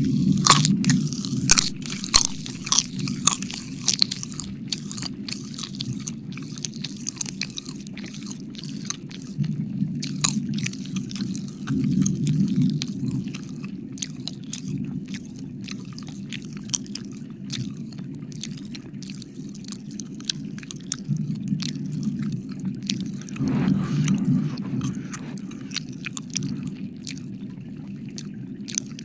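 Close-up wet mouth sounds and licking into a microphone: dense, irregular wet clicks and smacks, thickest in the first few seconds, over a steady low hum.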